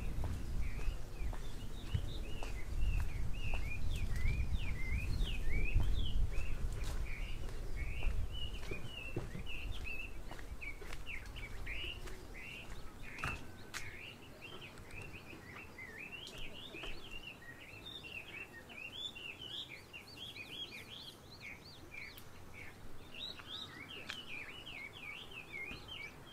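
Many small birds chirping continuously in short, quick high notes. A low rumble is loudest over the first half and drops away about halfway through.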